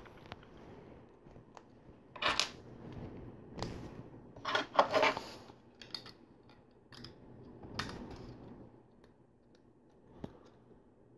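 Plastic LEGO pieces being handled and pressed together: scattered sharp clicks and short rattles, busiest about four to five seconds in.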